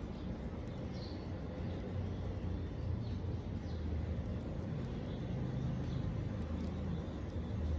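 Hamsters nibbling and chewing lettuce leaves: faint, scattered soft crackles over a steady low background rumble.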